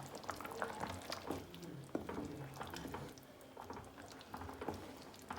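Potato-and-pea curry with a glass of water added, bubbling in the pot with many small irregular pops as it simmers to soften the potatoes and peas.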